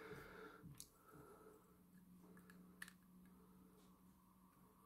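Near silence: room tone with a faint steady low hum and a few faint clicks from handling the portable speaker and plugging in its micro-USB charging cable.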